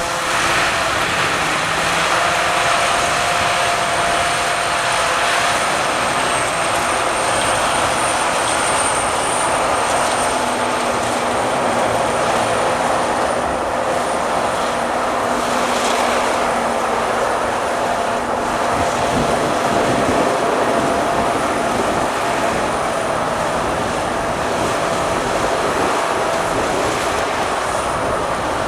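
SAKPATTANA KM-D 4.1 corn combine harvester running steadily, a loud, even machine noise with a thin high whine held over it.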